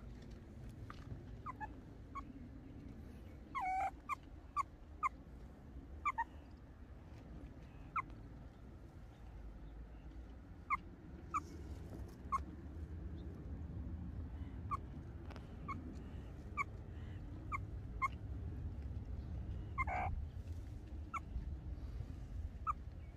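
Meerkat giving short chirping calls every second or so, with two longer wavering calls, one about four seconds in and one near the end.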